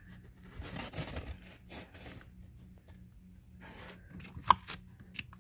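Handling noise: rustling and scraping as a hand works among the car's wiring harnesses, connectors and foam trim lining, with one sharp click about four and a half seconds in.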